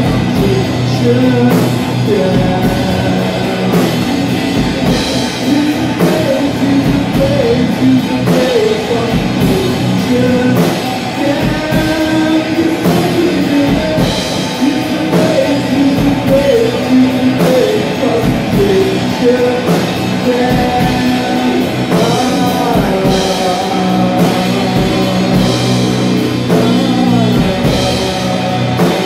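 Heavy rock band playing live: electric guitar riffs over a drum kit with cymbals.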